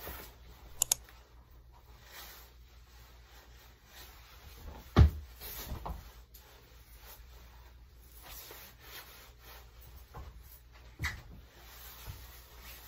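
Quiet room with the scuffs and thuds of two people dancing: a heavy thump of a foot on the floor about five seconds in and a lighter one near the end, with two sharp clicks about a second in.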